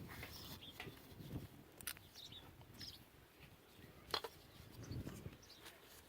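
A few light taps on a truck's front wheel hub cap to break its seal loose, the sharpest about four seconds in. Small birds chirp in the background.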